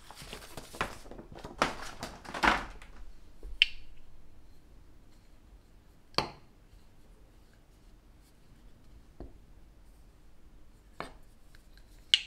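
Paper leaflet rustling and crackling for the first few seconds as it is handled and folded. Then a handful of sharp plastic clicks and taps, spaced several seconds apart, as the Manfrotto Pixi mini tripod's legs are spread and folded.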